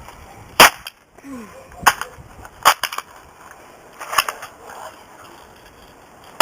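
Marksman .177 caliber repeater BB gun firing, a loud sharp snap about half a second in, followed by several fainter clicks and snaps from handling the gun and BBs striking, and another loud shot at the very end.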